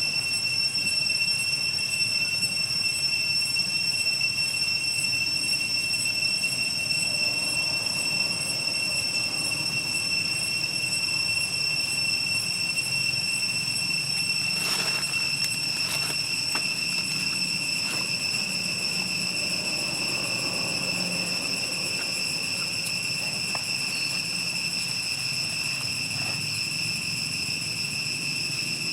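Insects droning: one steady high-pitched tone with overtones, with a few faint clicks about halfway through.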